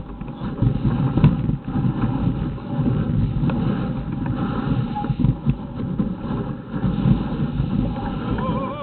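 Wind buffeting the camera microphone, an uneven low rumble that rises and falls.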